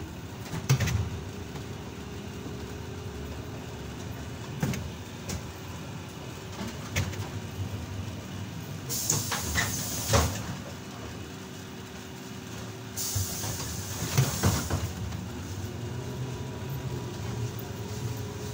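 Inside a ZiU-682G trolleybus: the steady hum of the running vehicle with scattered knocks and rattles, and two hisses of compressed air from its pneumatic system, about 9 and 13 seconds in.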